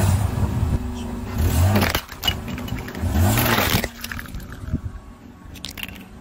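A car tyre rolling over and crushing plastic toys on asphalt, with cracking and crunching, while the car's engine revs in three short surges over the first four seconds. After that it is quieter, with a few small cracks.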